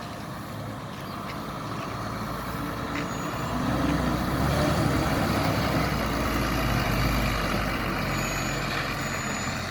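Heavy diesel engine running, growing louder to a peak about halfway through, then easing off.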